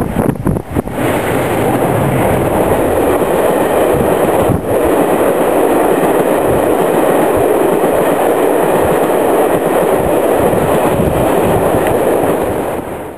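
Two Class 47 diesel locomotives pass directly beneath, followed by a long train of coaches. The wheels on the rails make a loud, steady roar, with a few brief dips in level as the locomotives go under.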